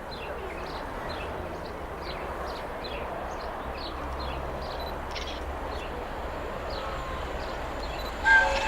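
Small birds chirping over a low steady rumble. About eight seconds in, the steam whistle of the LNER Peppercorn A1 Pacific Tornado starts, a sudden loud steady blast as the locomotive approaches.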